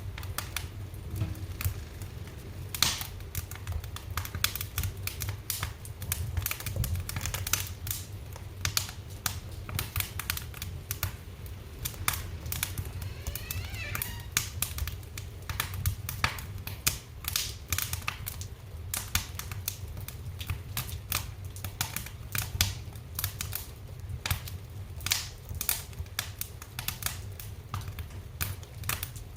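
Wood fire crackling in a fireplace: irregular sharp pops and snaps over a steady low rumble of the burning fire, with a brief thin whistle about halfway through.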